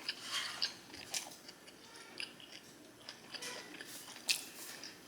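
A person chewing and biting food close to the microphone: irregular mouth clicks and crunches, the loudest a little after four seconds in.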